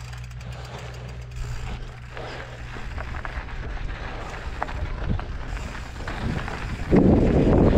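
Mountain bike rolling fast down a rough dirt trail: a steady low tyre hum with scattered clicks and rattles from the bike over the bumps. About seven seconds in, wind buffeting on the helmet camera's microphone gets suddenly much louder.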